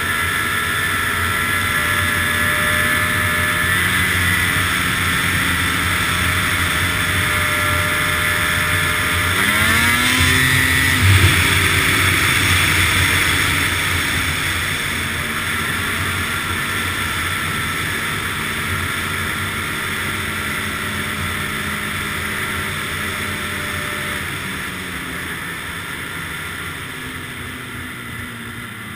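Ski-Doo snowmobile engine running under way on a trail. About ten seconds in it revs up with a rising pitch, then holds steady before gradually easing off and getting quieter toward the end as the sled slows.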